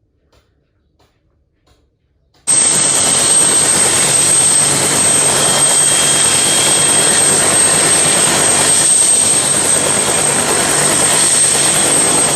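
A loud, steady vehicle engine sound effect, aircraft-like, that starts abruptly about two and a half seconds in, with a thin high whine held steady on top. It is preceded by faint clicks.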